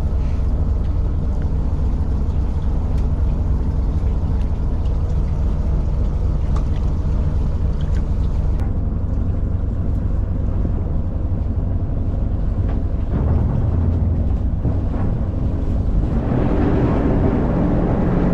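Fishing boat's engine running steadily with a low drone. A louder, higher layer joins near the end.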